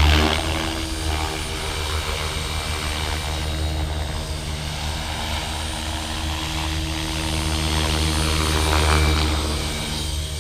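Blade Fusion 550 electric RC helicopter in flight, its 550 mm rotor blades and brushless motor making a steady pitched drone. The drone is loudest at the start and swells again about nine seconds in.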